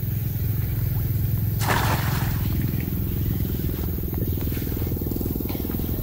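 A cast net lands on the river, a short hissing splash about two seconds in, over a steady low rumble.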